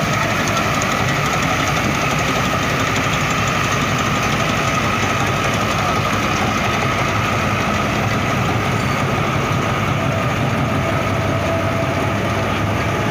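Tractor-mounted Mahindra Balkar B525 combine harvester running steadily while cutting paddy: the Mahindra Arjun Novo 605 DI tractor's diesel engine under working load, with a steady whine over the engine's rumble.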